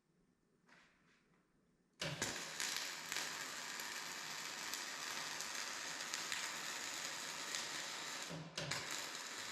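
Electric welding arc crackling steadily as a weld pass is run along a crack in a steel feed roller arm. It strikes abruptly about two seconds in, stops briefly about eight and a half seconds in, and restrikes.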